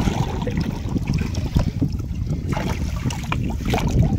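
Wind rumbling on the microphone over water lapping at a small wooden boat, with scattered light clicks and rustles as a fine nylon gill net is hauled aboard by hand.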